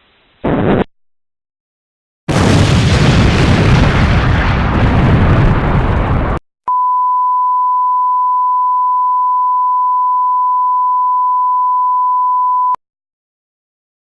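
A short burst of noise, then a loud blast of noise like an explosion, about four seconds long and cut off abruptly. After it comes a steady single-pitch beep tone, held for about six seconds and stopping suddenly.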